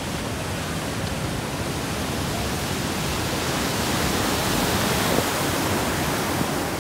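Ocean surf breaking, the whitewater of the broken wave rushing and hissing as a steady, loud wash that swells gradually through the middle.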